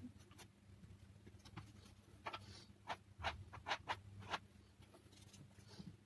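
A flat spreading tool scraping and dabbing thick textured paste on a board: a quick run of about six short scrapes in the middle, over a faint steady hum.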